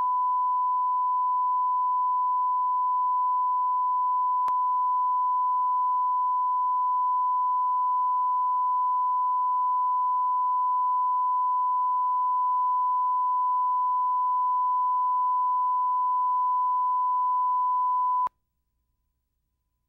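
Steady 1 kHz line-up reference tone recorded with colour bars at the head of a broadcast videotape, used to set audio levels. It is one unchanging pure tone that cuts off suddenly about a second and a half before the end.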